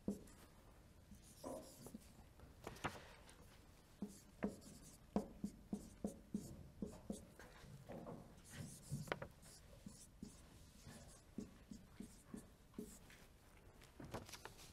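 Marker writing on a whiteboard: a quiet run of short taps and strokes as symbols are written.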